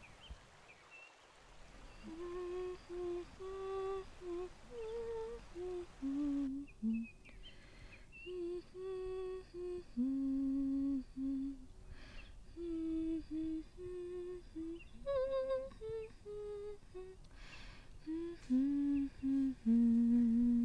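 A voice humming a slow, wordless tune in short phrases of held notes.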